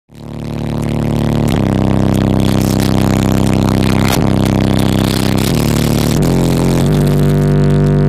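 Bass-heavy music played loud through a competition car audio system, heard inside the vehicle's cabin: sustained low notes that shift every second or so.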